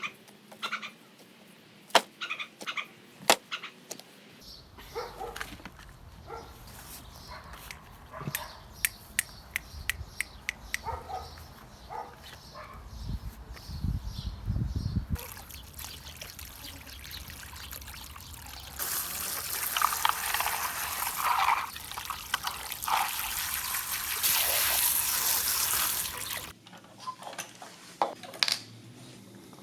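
Small clicks and taps from handling parts during a model-car restoration, then about seven seconds of hissing spray starting near the two-thirds mark, followed by more clicks.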